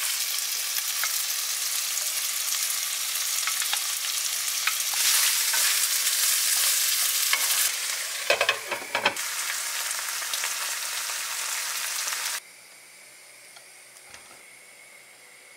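Chicken pieces and onions sizzling in a frying pan while being stirred, the utensil clicking and scraping against the pan, with a few louder knocks of a spoon on the pan about eight seconds in. The sizzling cuts off suddenly at about twelve seconds, leaving quiet room tone with one faint click.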